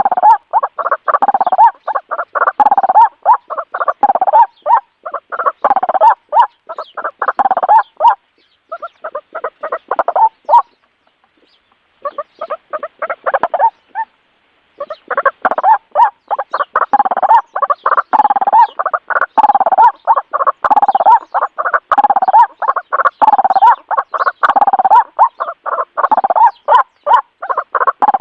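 Birds calling: a rapid, chattering call, each phrase rising in pitch, repeated about once a second. It breaks off briefly twice near the middle.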